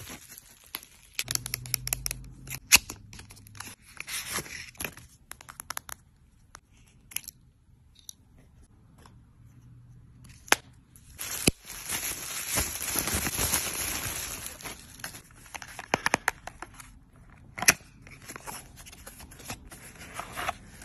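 Plastic wrap and bubble wrap crinkling and rustling as packaged makeup is unwrapped and handled, with many sharp clicks and taps of boxes and compacts. About halfway through comes a longer continuous rustle lasting a few seconds.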